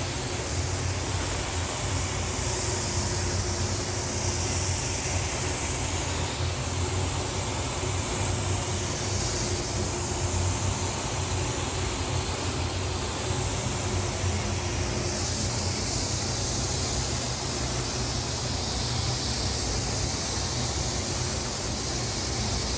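Gravity-feed compressed-air spray gun hissing steadily as it sprays epoxy primer onto a car panel, over a steady low hum.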